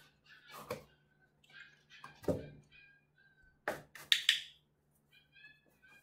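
A 5.5-week-old Australian Shepherd puppy whimpering in short, high squeaks, mixed with thumps and scuffs as it paws at and climbs onto a small cardboard box. About four seconds in come two sharp, louder knocks.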